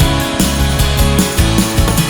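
Background rock music with guitar and a driving drum beat.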